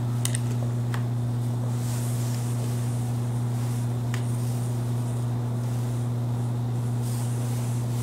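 Steady low hum with a few faint light clicks, about a third of a second, one second and four seconds in.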